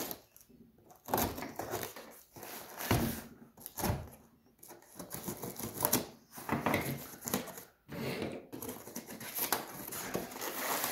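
Pocket knife slicing packing tape on a cardboard shipping box, with the cardboard end flap scraping and rustling as it is pried open: a series of irregular rasping bursts with short pauses between them.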